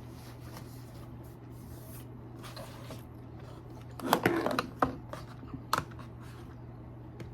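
Small objects being handled: light rustling, then a cluster of clicks and rattles about four seconds in and a couple of single clicks after, over a steady low hum.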